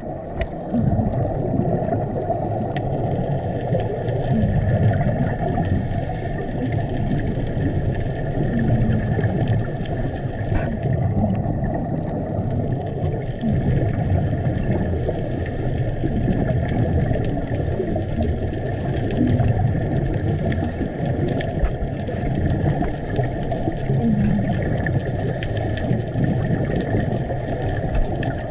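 Steady, muffled low rumble of water moving around a GoPro in its underwater housing.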